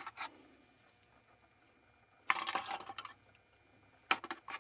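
Light metallic clinks and rustling of wire being handled, in short clusters: a few clicks at the start, a busier patch about two and a half seconds in, and two sharp clicks near the end.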